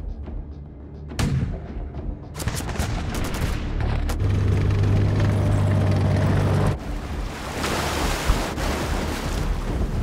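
Cinematic music mixed with battle sound effects: a quick run of gunshots and booms, then a loud deep drone that cuts off suddenly, followed by a rushing noise.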